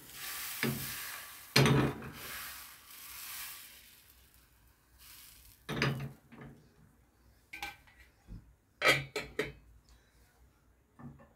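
Crepe batter sizzling in a hot nonstick frying pan as the pan is swirled, with a couple of knocks of the pan, the sizzle fading after about four seconds. Then scattered metal clinks of cookware, the last of them as a stainless steel lid is set on the pan near the end.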